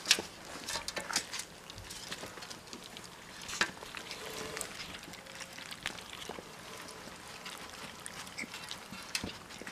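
Three-week-old German shorthaired pointer puppies lapping and slurping milk formula from a shallow metal pan, with their paws splashing in it: an irregular run of small wet smacks and clicks.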